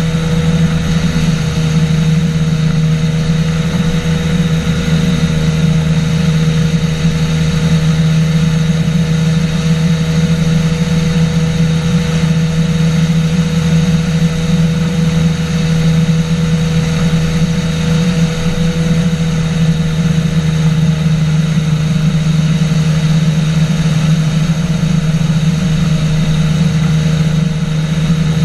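Engine and pusher propeller of a flying boat (a trike-style hang-glider wing over an inflatable hull) running steadily in level flight: a loud, unchanging drone.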